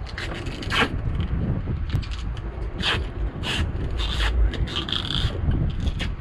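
Wind rumbling on the microphone over a boat at sea, with a series of short scrapes and knocks close by.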